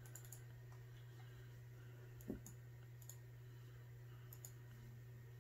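Faint computer mouse clicks, several coming in quick pairs, with one soft thump a little past two seconds in, over a steady low hum.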